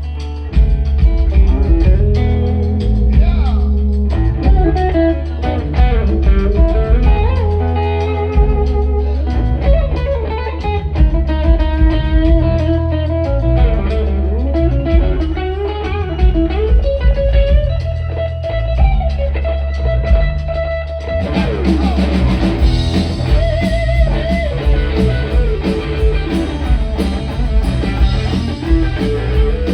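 Live blues-rock band playing an instrumental passage: an electric guitar leads with bending, sliding notes over bass and drums. About two-thirds of the way in the band gets fuller and brighter, with cymbals coming up.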